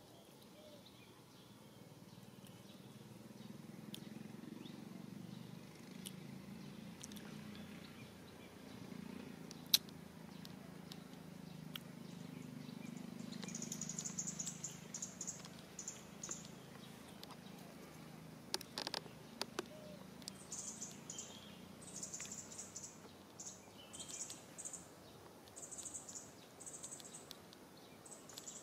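Faint outdoor ambience: a low hum, a few scattered clicks, and from about halfway in a series of short, high-pitched chirps repeating in quick groups.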